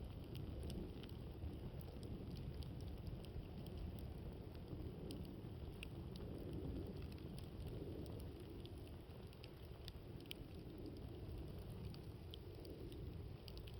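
Wood campfire crackling, with many small sharp pops scattered through, over a steady low rumble of wind.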